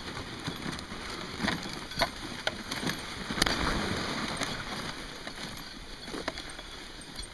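Team of huskies pulling a wheeled training rig along a packed snow trail: a steady rushing noise of the rig rolling and the dogs running, with irregular clicks and knocks from the rig, the loudest about three and a half seconds in.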